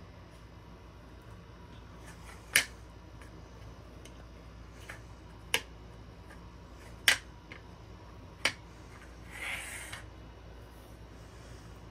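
Four sharp plastic clicks, spaced a second or more apart, as a clear acrylic stamp block is knocked down onto a black ink pad to ink the stamp. Near the end there is a brief soft rustle of plastic being handled.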